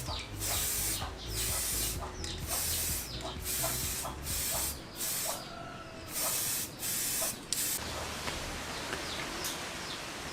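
Spray paint hissing in a string of short bursts, about one a second, as motorcycle wheel hubs are painted; the spraying stops about eight seconds in.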